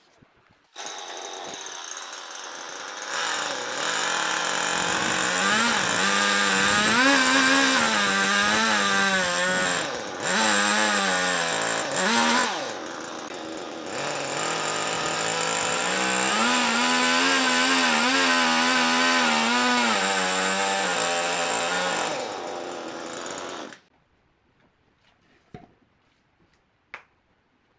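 Husqvarna two-stroke chainsaw running and bucking a log, its engine pitch sagging and recovering as the chain cuts, in two stretches of cutting with a short lull between. It drops back to idle and cuts off with a few seconds left, followed by a few faint knocks.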